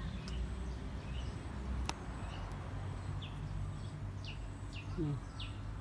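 Small birds chirping: a few short, falling chirps, one after another in the second half, over a low steady rumble, with one sharp click about two seconds in.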